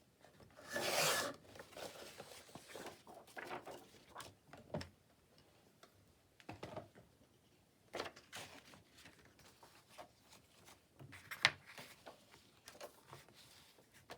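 Paper being handled on a work table: a loud rustle about a second in, then scattered softer rustles, light taps and clicks, with a sharp click near the end.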